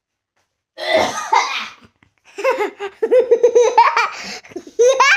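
A young boy laughing hard: a breathy burst about a second in, then a long run of quick, high-pitched laughs.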